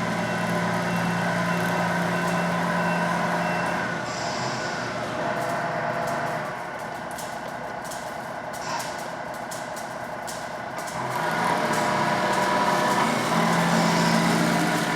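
Tamiya Knight Hauler radio-controlled tractor truck driving slowly on its new 60-turn crawler motor, a steady running drone that drops back for a while and then swells again. While it reverses, a repeating high beep sounds for the first couple of seconds.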